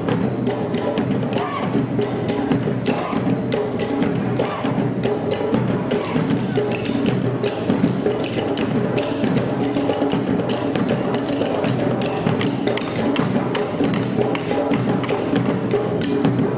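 Maculelê music: wooden sticks (bastões) clacked together in a steady, dense rhythm over hand drumming.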